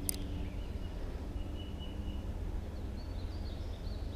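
Steady low outdoor rumble with faint bird chirps in the later half, and one sharp click right at the start.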